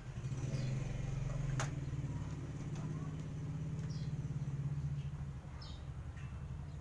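An engine running steadily at idle with a fast low pulsing, and one sharp click about a second and a half in.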